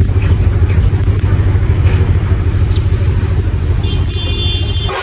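Steady deep rumble of a moving vehicle's engine and road noise, heard from up on the roof of the loaded vehicle as it drives over a rough mountain road. Near the end a few faint high steady tones join in.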